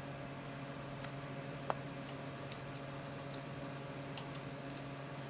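Steady low hum of a running computer, with a few faint, scattered clicks and ticks and one sharper click about a second and a half in.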